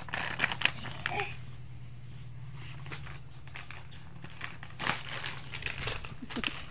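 A plastic bag crinkling in scattered short crackles and rustles over a steady low hum from an electric fan.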